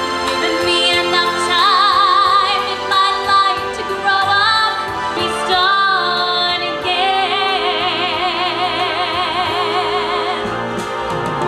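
Singing over musical accompaniment: a voice sings long notes with wide vibrato, holding one long note from about seven seconds in until near the end.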